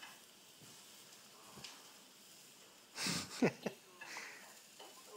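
A baby's short breathy noise about three seconds in, with a brief falling squeak at its end, against faint room sound.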